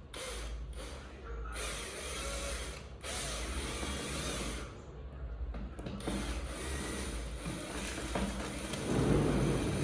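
Cordless drill-driver running in short runs, driving screws during office-chair assembly: three runs, the last one the longest.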